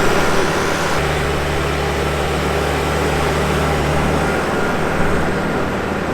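Heavy diesel engine of earthmoving equipment running steadily under work, a low drone whose tone shifts about a second in.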